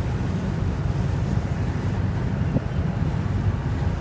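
Wind buffeting the microphone in a steady low rumble, over the wash of the sea.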